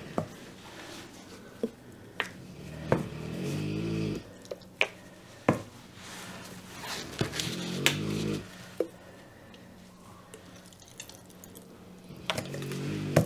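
Acrylic paint squeezed out of a plastic squeeze bottle onto a canvas: a few wet, squelching sputters from the bottle, each lasting a second or so, among scattered light clicks and taps of handling.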